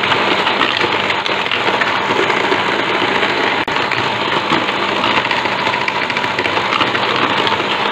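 Electric hand mixer running steadily at speed, its twin wire beaters whisking egg, sugar and oil in a bowl, beating the mixture until it is pale and frothy.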